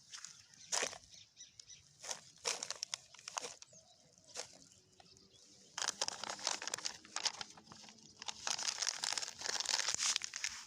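A plastic bag crinkling and rustling as it is picked up and handled, in scattered bursts at first and then continuous crackling through the second half.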